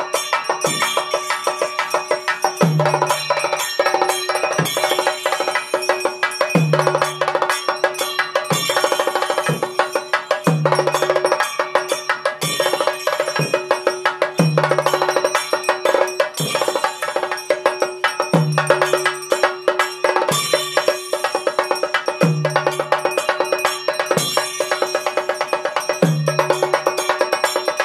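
Rhythmic percussion music: a fast, dense run of metallic strikes and bell ringing over a steady ringing tone, with a deep drum stroke about every two seconds.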